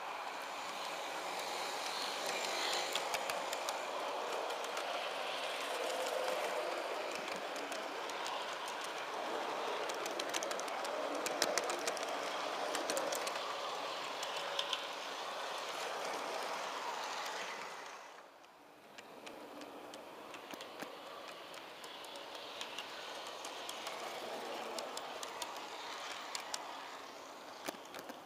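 Metal wheels of G scale model freight cars rolling over garden-railroad track, heard from a car riding in the train: a steady rolling rumble with frequent sharp clicks over the rail joints. The sound drops away suddenly about 18 seconds in, then carries on more quietly.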